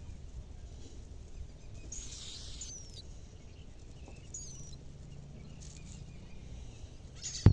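A few brief, high, curving bird chirps, spaced out over a steady low outdoor rumble.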